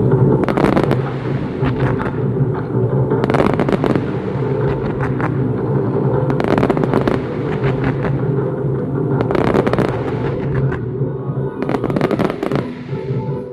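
Fireworks bursting and crackling in clusters about every three seconds, over steady music.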